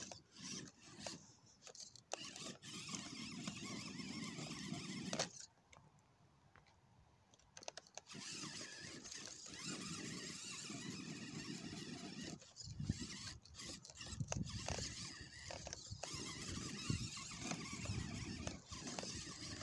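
Redcat RS10 RC rock crawler's electric motor and drivetrain whirring in bursts as it is driven while wedged in a narrow crack, trying to crawl out. It goes quiet for a couple of seconds about five seconds in, then starts again.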